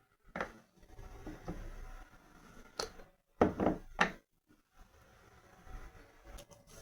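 Small kitchen jars and items being handled on a counter: a few short knocks and clicks, the loudest cluster a little past the middle, with soft rustling between them.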